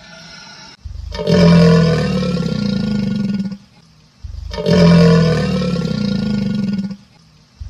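Animal roar sound effect played as a loop: two long roars of nearly three seconds each with short breaks between them, and a third beginning at the end.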